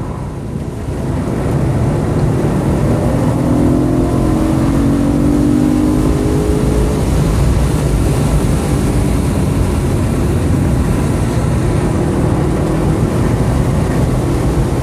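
2013 BMW M3's 4.0-litre V8 heard from inside the cabin on a phone microphone, pulling hard with a rising engine note as the car accelerates along a straight, then easing off as it slows for the next corner. Steady tyre and wind noise runs underneath.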